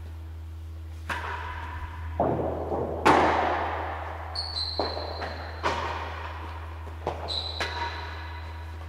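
Real tennis rally: a string of about six sharp thwacks and thuds, roughly a second apart, as the ball is struck by rackets and strikes the court's walls, penthouse roof and floor. Each hit rings on in the large walled court, over a steady low hum.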